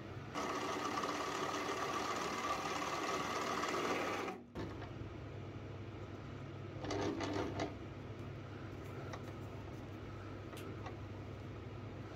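Benchtop mini metal lathe running, its cutter turning down a small screw blank, for about four seconds before it cuts off suddenly. A shorter burst of sound follows a couple of seconds later, then faint ticks over a low steady hum.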